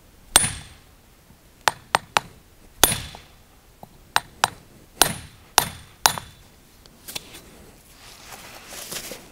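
Club hammer striking a steel splitting iron (Sprengeisen) set on a granite paving stone: about ten sharp, ringing metal-on-metal blows, some in quick runs of two or three, which split the stone. Near the end there is a rough scraping as the two split halves are pulled apart in the sand.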